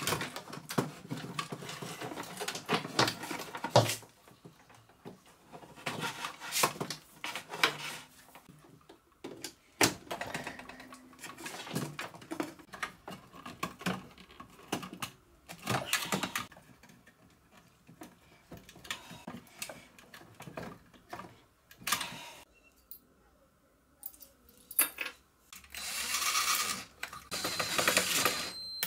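Clicks, rattles and scrapes of hands handling wiring and a metal-cased switching power supply while a screwdriver works its terminal screws. Near the end a Makita cordless drill runs for about three seconds.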